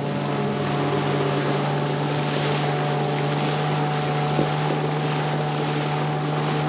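Motorboat engine running under way, a steady drone over the rush of water and wind.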